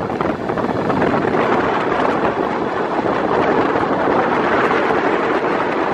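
Pier train running along its rails, a steady rushing noise mixed with wind buffeting the microphone.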